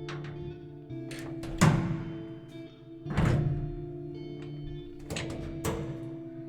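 Several heavy thuds of old doors shutting in a 40-year-old apartment building, the loudest about one and a half and three seconds in, each with a short ringing decay. They sit over background music of sustained notes that change every second or two.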